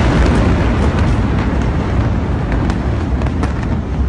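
Rumble of a massive gas explosion and its fireball: a loud, low roar that slowly fades, with scattered sharp crackles and pops.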